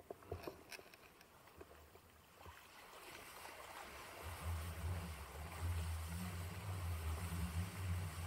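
Kiteboard getting under way across shallow lagoon water: a few small splashes at first, then a steady rush of water under the board that grows louder about three to four seconds in, with a low rumble of wind buffeting the camera's microphone.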